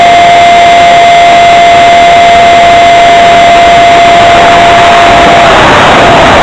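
70 mm electric ducted fan's brushless motor whining at a steady pitch under loud wind rush on the onboard camera's microphone. About five seconds in, the whine drops slightly in pitch and starts to waver.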